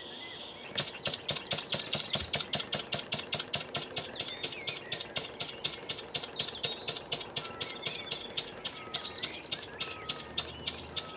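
Small Wig-Wag model engine with a steel flywheel, loaded by a Baker fan, starting up about a second in and running slowly with a steady beat of sharp exhaust puffs, about three a second. It is set to tick over just short of stalling.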